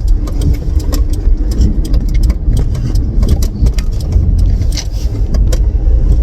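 Road and engine noise inside a moving car's cabin: a loud, steady low rumble with scattered clicks and rattles, the car moving off at a green light.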